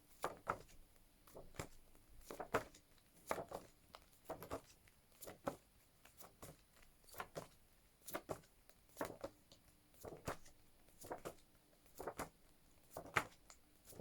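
Phonics flashcards being flipped one after another, a short paper rustle about once a second at a steady pace.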